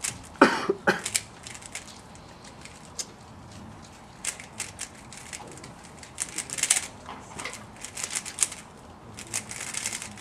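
3x3x3 speedcube being turned fast by hand during a timed solve: bursts of quick plastic clacking with short pauses between them. The loudest knocks come about half a second in.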